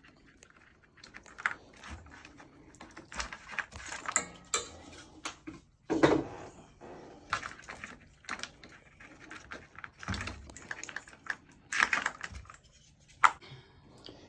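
Irregular clicks, knocks and rattles of hand work on an RV refrigerator's wiring: 12-volt wire connectors being pulled off the cooling fans and the fans being taken out. The loudest knocks come about six and twelve seconds in.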